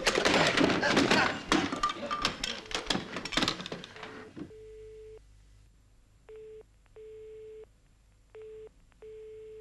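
Loud clattering and knocking, then a telephone dial tone heard through the receiver from about four seconds in: a steady mid-pitched tone switching on and off in a repeating short-long rhythm, the Czech dial-tone pattern.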